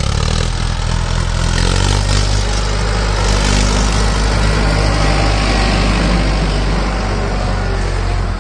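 Mahindra Arjun Ultra-1 555 DI tractor's four-cylinder diesel engine running steadily as the tractor drives past close by, hauling a loaded trolley.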